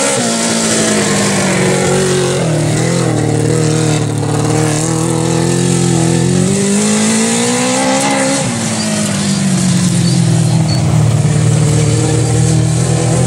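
Honda 750 motorcycle engine in a racing lawn mower running hard around a dirt track. Its pitch dips about two seconds in, climbs again a little past the middle, then drops back and holds steady as the throttle is worked through the turns.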